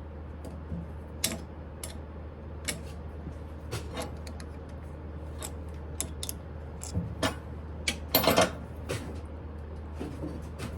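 Scattered metal clicks and taps as a knurling tool is set straight in the tool post of a Smithy lathe, with a louder metallic clatter about eight seconds in, over a steady low hum.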